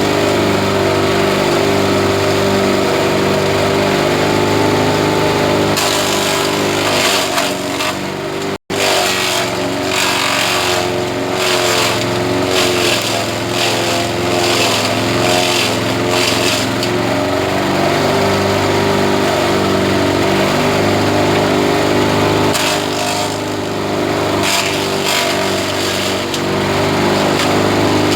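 Engine-driven grass chopper running steadily, with bouts of dense crackling as grass goes through the cutter, from about six seconds in to about seventeen, and again briefly a few seconds before the end.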